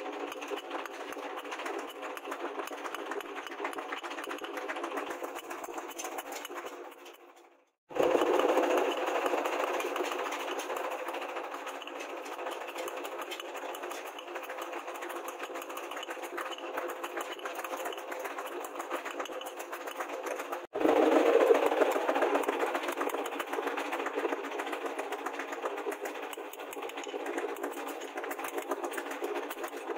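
Hand hammer beating a rebar spear prong on a steel anvil in quick, continuous blows, forging the tines. The hammering fades out just before eight seconds in, then starts again abruptly and louder; it breaks off and resumes louder again about twenty-one seconds in.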